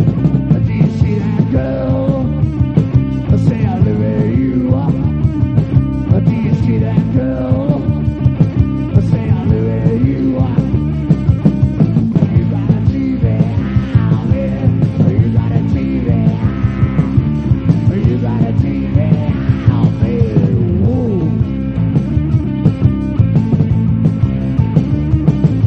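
Loud rock music with no singing: distorted electric guitars, bass and drums, with a lead guitar playing sliding, bending lines over a steady beat.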